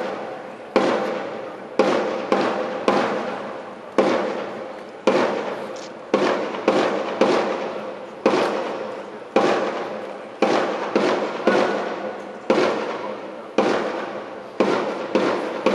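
Sharp, loud percussive strikes in a marching rhythm, about one or two a second in groups of two or three with short pauses, each echoing briefly off the courtyard walls.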